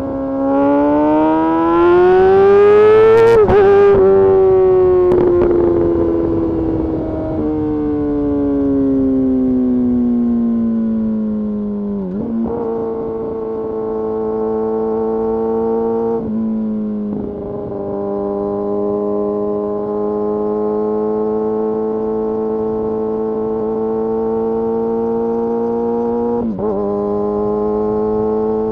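Kawasaki Ninja ZX-6R inline-four engine heard from the rider's seat. It revs up hard for about three seconds, then its note falls steadily as the bike slows. After that it cruises with a slowly rising pitch, broken briefly a few times by gear changes.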